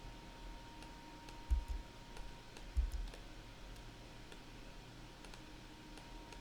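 Faint, scattered clicks of a computer mouse and keyboard. Two dull low thumps about a second and a half in and just before three seconds in are the loudest sounds.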